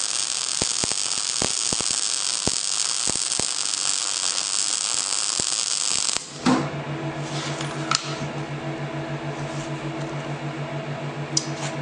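MIG welding arc, a steady hiss and crackle with sharp pops, which cuts off abruptly about six seconds in as the weld ends. A steady electrical hum from the welding machine follows, with a few clicks.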